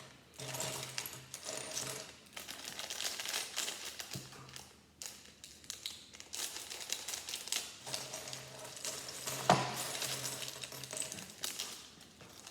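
Loose Lego plastic pieces clicking and clattering as they are handled and moved about, with one sharper click about three-quarters of the way through.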